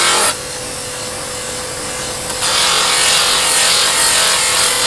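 Belt-driven grinding wheel grinding the sheet-steel blade of a hand plough (phawra): a harsh, steady hiss of steel on the abrasive wheel over the wheel's steady hum. Shortly after the start the grinding stops for about two seconds, leaving only the hum, then resumes.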